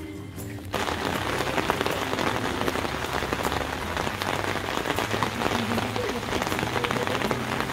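Rain falling steadily, a dense hiss of countless drops that starts suddenly about a second in.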